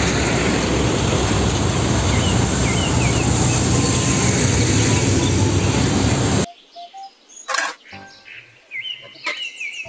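Tata dump trucks driving past on a road: a steady rush of diesel engine and tyre noise with birds chirping over it, which cuts off abruptly about six and a half seconds in. After that, quieter clicks and rattles of plastic toy vehicles being handled in a basket, with birds still chirping.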